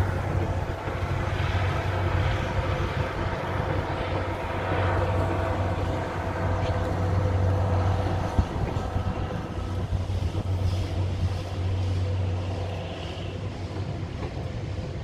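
A steam-hauled train of blue passenger coaches rolling across a steel truss bridge: a steady rumble that eases a little near the end as the last coaches cross.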